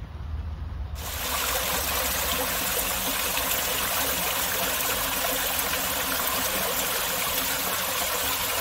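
Small waterfall trickling and splashing down a mossy rock face, a steady rush of water that starts about a second in, after a low rumble.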